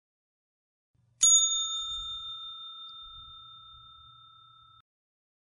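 A single bell ding about a second in, a clear ringing tone that fades away over about three and a half seconds.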